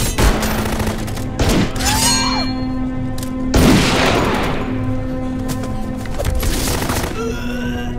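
Action-film soundtrack: a dramatic score under gunfire and hard impact hits, the heaviest hit about three and a half seconds in.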